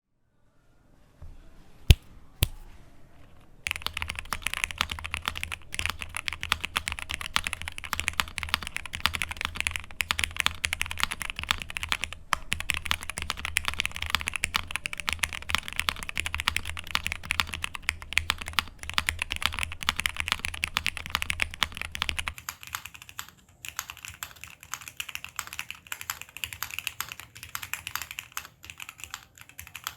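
Fast, continuous typing on a Qwertykeys QK65 mechanical keyboard with lubed and filmed Hyperglide Cherry MX Black linear switches in a POM plate, under GMK keycaps. Two sharp clicks come about two seconds in, and the typing starts about a second later. From about two-thirds of the way through, the typing sounds thinner and loses its low end, as it is picked up by a phone's built-in mic.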